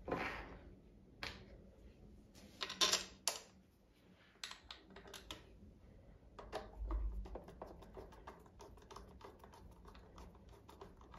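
Small irregular clicks and taps of a hand handling the top of an Ideal Automatik sewing machine, several a second, with a few louder knocks in the first few seconds.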